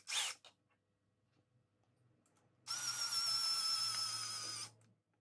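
Greenworks cordless drill-driver: a brief blip right at the start, then the motor runs steadily for about two seconds with a high whine before stopping abruptly.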